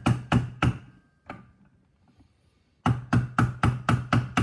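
Mallet striking an Icon 2.5 external-reservoir shock to knock a stuck part loose. The blows come in quick runs of about four a second: a short run at the start, one lone blow just over a second in, a pause of about a second and a half, then a second run near the end.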